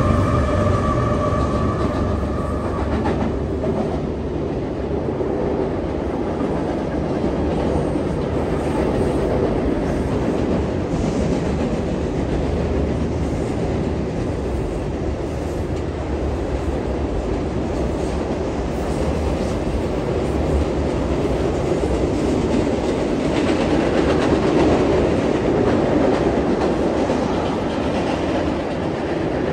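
Double-stack intermodal freight train rolling across a steel trestle: a steady rumble and clatter of wheels on rail. A steady pitched whine from the passing locomotives fades out about three seconds in.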